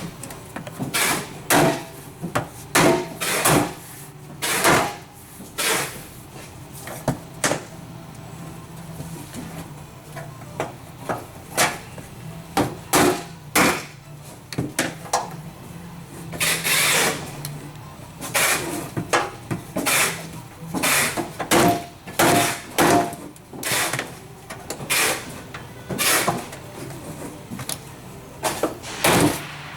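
Rubber mallet striking a rubber bumper pad to push its tabs down into the truck's bumper face bar. It gives dozens of short knocks in irregular bursts, often two or three in quick succession, with brief pauses between.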